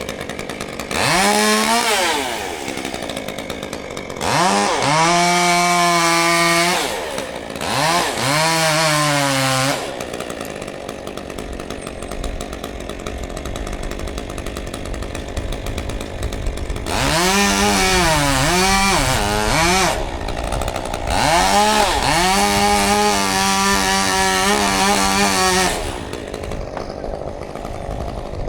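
Chainsaw revved up to full speed five times, each burst lasting one to four seconds, dropping back to a lower steady running sound in between. In the fourth burst the pitch wavers up and down.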